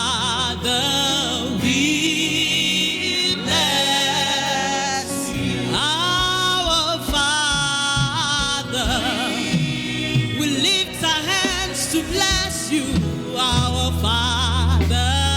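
Gospel worship song: voices singing with wavering vibrato over a steady instrumental accompaniment.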